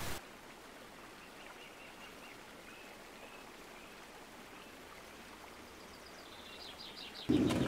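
Quiet woodland ambience: a faint steady hiss with a few distant birds chirping. A sudden louder rush of noise starts just before the end.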